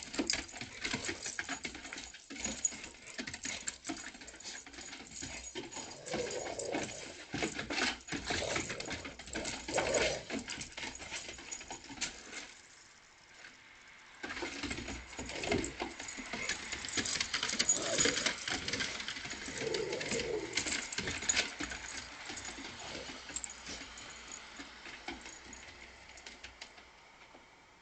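A dog hunting and scrabbling about: many quick patters, clicks and scratches of paws and claws, with a short lull about halfway through.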